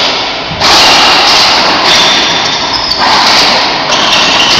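Racquetball rally: the hollow rubber ball cracks off racquets and the court walls about once a second, four hits in all. Each hit rings on in the closed court's echo.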